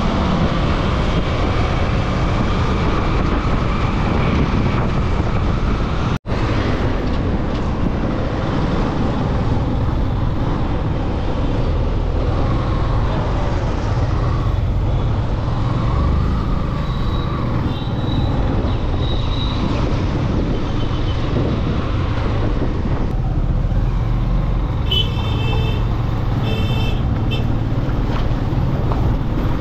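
Steady engine and road rumble of a moving vehicle on a road, with a few short horn toots near the end. The sound drops out for a split second about six seconds in.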